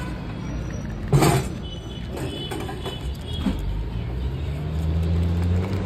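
Road traffic running close by: a steady low engine rumble that swells in the second half, a sharp knock about a second in, and a faint high horn shortly after it.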